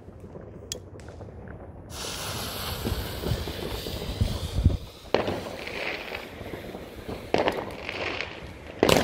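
Fireworks cake fuse hissing as it spits sparks for about three seconds. Then three sharp bangs about two seconds apart as the cake begins firing.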